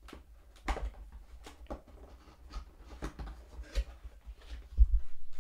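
Cardboard product box being handled and opened by hand: a scatter of short scrapes and taps, with a few low thumps near the end, the loudest part.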